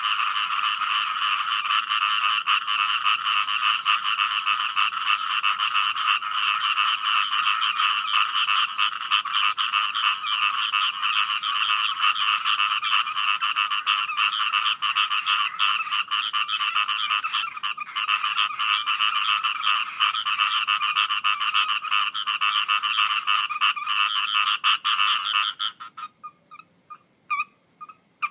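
Dense chorus of many frogs croaking continuously in rapid overlapping calls. Near the end the chorus stops abruptly, leaving only a few scattered calls.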